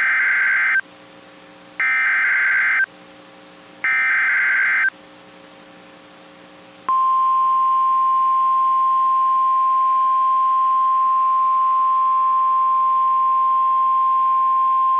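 NOAA Weather Radio emergency alert signalling: three short bursts of SAME header data, each about a second long with a second's pause between, then after a two-second gap the single steady-pitched warning alarm tone, held without a break. Together they mark the start of an emergency alert broadcast.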